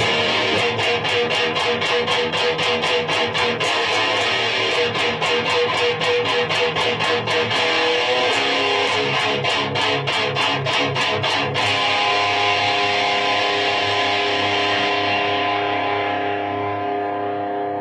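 Distorted electric guitar through a high-gain amplifier, guitar volume full up and the hiss-reduction mod switched off. Fast picked riffing for about the first eleven seconds, then a held chord that rings and slowly fades.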